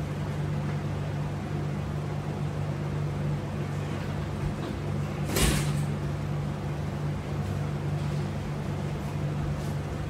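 Steady low hum of a window air conditioner running, with one short sharp noise about five and a half seconds in.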